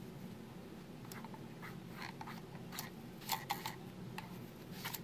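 Fingernail scraping and picking along the seams of a plastic optical mouse to dig out dirt: faint, irregular small scratches and clicks, thickest in the second half, over a steady low hum.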